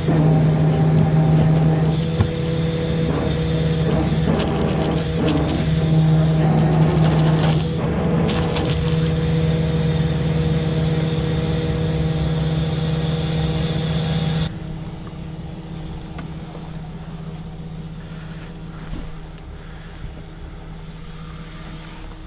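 Tow truck engine running steadily under load, driving the hydraulic winch during a vehicle winch-out, with a few metallic clanks about seven to eight seconds in. About fourteen seconds in the sound drops sharply to a fainter, duller engine hum.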